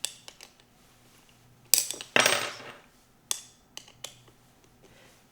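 Small metal assembly tools and skate-wheel hardware clinking and tapping while a wheel's axle screw is secured: scattered light clicks, with two louder clanks about two seconds in, the second ringing out briefly.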